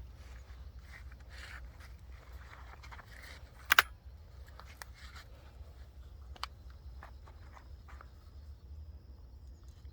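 A sharp double click about four seconds in, the action of a 1949 Marlin Model 90 over-and-under shotgun being snapped shut, then a fainter click and light handling ticks over a steady low rumble.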